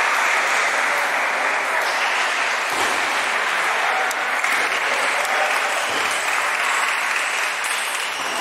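Dense, steady, applause-like hubbub of a busy table tennis hall, with no single sound standing out.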